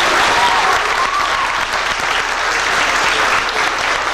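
Audience applauding, many hands clapping at once, with a voice or two calling out in the first second.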